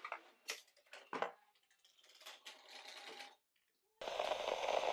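Scattered clicks and knocks of a hard plastic drone and its controller being handled. About four seconds in, a loud steady rushing noise cuts in abruptly.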